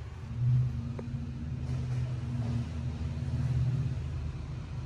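A steady low mechanical hum, swelling slightly about half a second in and again around three and a half seconds.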